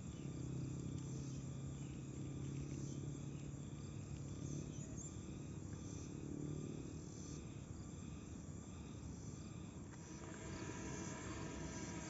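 Insects chirring steadily, with the low steady hum of a vehicle engine from the road; another vehicle's engine tones come in near the end.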